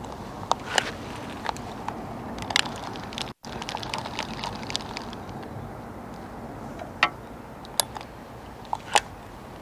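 Irregular sharp clicks and small ticks over a steady background hiss, from rod and reel handling while a hooked dace is wound in on a float rod.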